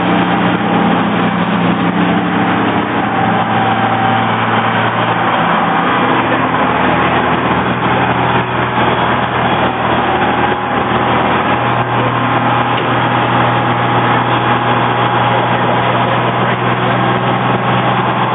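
Fire engine's engine running loud and steady close by, its pitch shifting twice.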